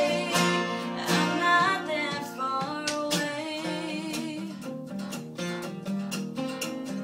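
Two acoustic guitars strumming a slow ballad accompaniment, with a woman's singing voice holding wordless notes over the chords in the first few seconds.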